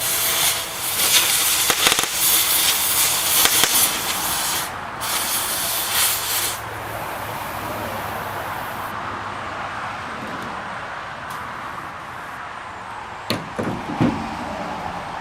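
Oxy-fuel cutting torch cutting through rusted bolt heads: a loud hiss with crackling for about six and a half seconds, briefly broken near the middle, then falling to a softer steady hiss. Two sharp knocks near the end.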